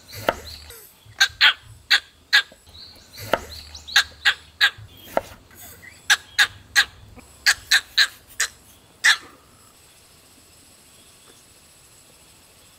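Kitchen knife cutting a cucumber on a wooden cutting board: about eighteen sharp, irregular chops as the blade goes through the cucumber and knocks the board, stopping about nine seconds in.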